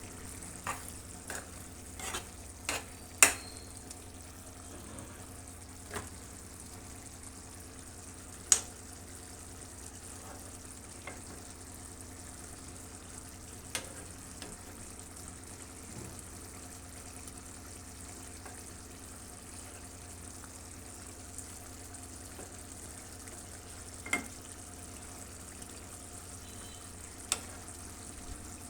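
Chicken kababs frying in oil in a pan with a steady sizzle. A utensil clicks against the pan now and then, most sharply about 3 and 8.5 seconds in.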